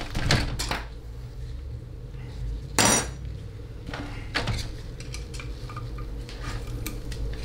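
TH475 transmission valve body being set down and shifted in a stainless steel parts tray: several metal clanks and knocks, the loudest with a ringing edge about three seconds in. Light clicks follow as a pick works into the valve body.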